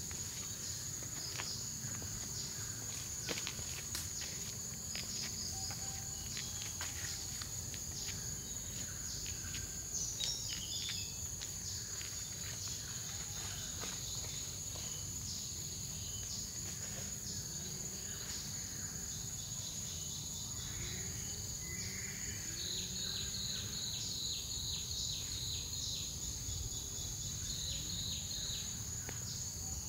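Tropical forest insects: a steady high-pitched drone with scattered short chirps and clicks. About three-quarters of the way through, a fast pulsing insect call joins in.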